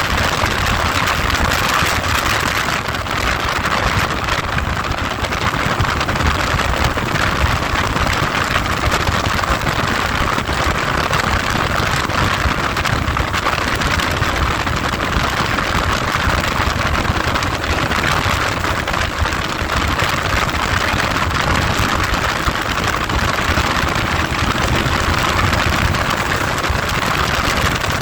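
Heavy, steady wind noise rushing over the microphone while riding, with a vehicle's engine running underneath.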